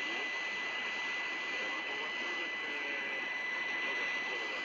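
A distant medium-wave AM radio signal from Galei Tzahal received through heavy hiss and static. A steady high whistle sits over it, and the station's programme is only faintly audible underneath.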